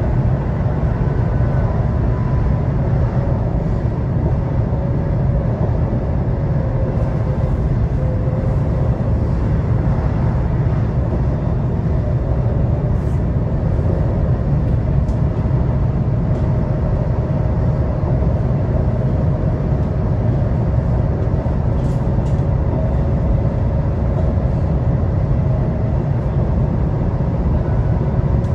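ICNG electric train running steadily: a constant low rumble of wheels on rails with a faint steady whine.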